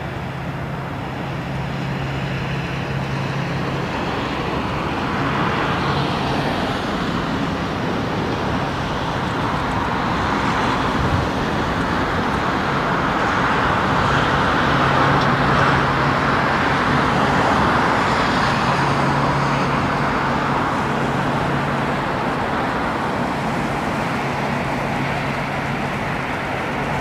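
Airbus A350 jet engines (Rolls-Royce Trent XWB) on final approach and landing, a broad jet rush that swells to its loudest about halfway through and then eases off. A low steady hum comes and goes underneath.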